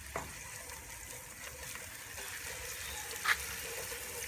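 Chopped onion, garlic and celery sizzling quietly in hot oil in a cooking pot as they are stirred, with one brief sharp utensil sound about three seconds in.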